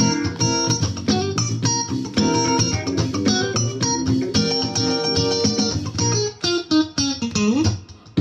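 Stratocaster-style electric guitar playing a funk line of short, choppy strummed chords and single notes. Near the end a note glides up and the playing briefly drops away.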